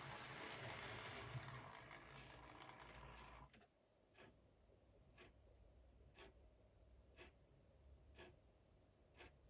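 Hornby 00 gauge Toby model locomotive running on the track, a faint fading hum that stops suddenly about three and a half seconds in as the train halts. After that there are only faint ticks, about one a second.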